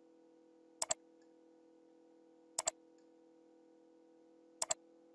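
Computer mouse button clicked three times, about two seconds apart, each click a quick press-and-release pair, over a faint steady hum.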